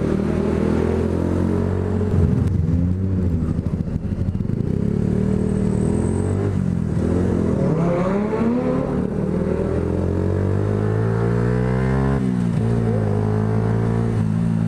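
Yamaha YZF-R125's single-cylinder 125 cc four-stroke engine revved hard while riding, its pitch climbing and falling several times as it accelerates and eases off, with a sharp drop in revs near the end.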